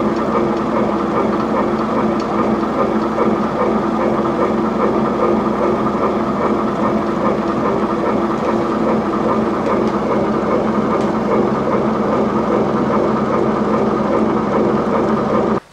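Bread machine running, its motor turning the kneading paddles with a loud, steady mechanical drone that starts and stops abruptly.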